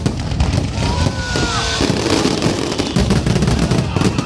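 Fireworks bursting in a dense barrage of repeated booms and crackles, typical of a display's finale.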